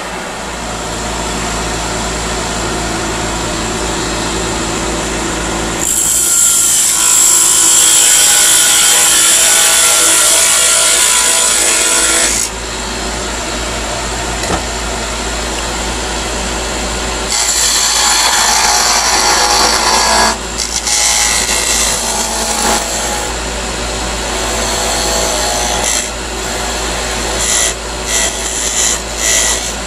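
Wood lathe running with a steady motor hum while a hand-held turning tool cuts into a spinning wooden chess-piece blank. The cutting noise comes in two long spells of several seconds each, then a few short bursts near the end.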